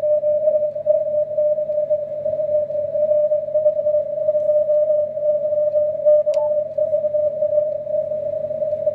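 A CW signal heard through an HF transceiver's speaker on the 80 m band: a steady tone of about 600 Hz through the receiver's 600 Hz filter, wavering in strength over faint band noise. A short click comes about six seconds in.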